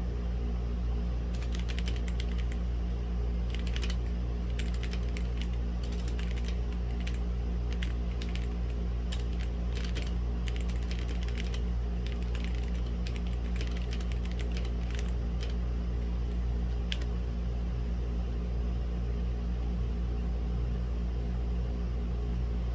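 Typing on a Womier/Gamakay K87 mechanical keyboard with red linear switches: bursts of quick keystrokes start about a second in and stop at around seventeen seconds. A steady low hum of background noise runs underneath.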